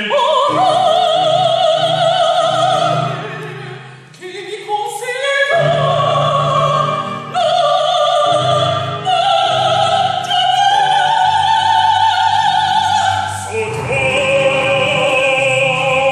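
A female opera singer singing a held aria line with wide vibrato over accompaniment. The voice fades briefly about four seconds in, then climbs in a quick rising run and sustains high notes.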